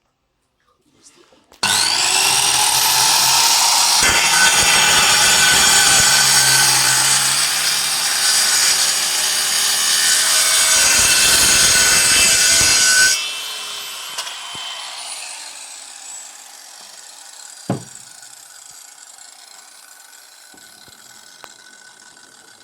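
Boda electric circular saw switched on and cutting through wood for about eleven seconds. The motor then runs free and slowly winds down with a falling whine, and there is a single knock near the end.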